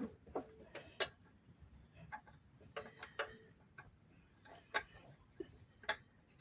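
Faint, irregular metal clicks and clinks of a lawn mower blade being fitted onto its spindle and the nuts started by hand, a few with a brief ring.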